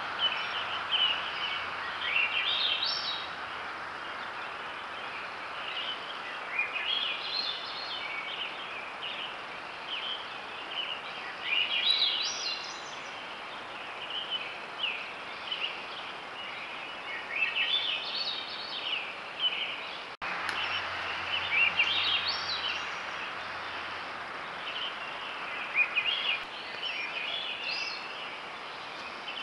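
A songbird singing short, chirpy phrases, each about a second and a half long, repeated every four to five seconds over a steady hiss.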